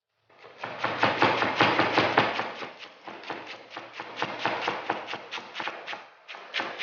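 Kitchen knife rapidly chopping cabbage on a cutting board, several quick strokes a second, easing off toward the end.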